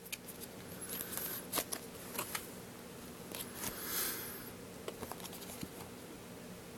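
Foil Pokémon booster pack wrapper being opened and handled: scattered crinkles and small clicks, with a louder rustling swell about four seconds in.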